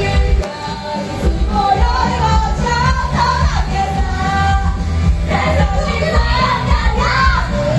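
Live pop music with a sung vocal melody over a heavy, bass-loud backing, played loud through a live-house sound system; it dips briefly about half a second in.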